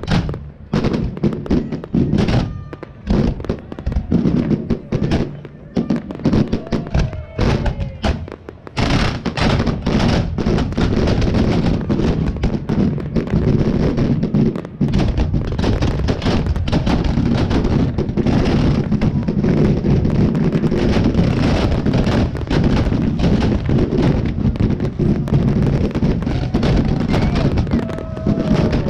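Fireworks display firing: separate bangs and crackles for the first several seconds, then from about nine seconds in a dense, continuous barrage of shell bursts and crackle, the display's big finale.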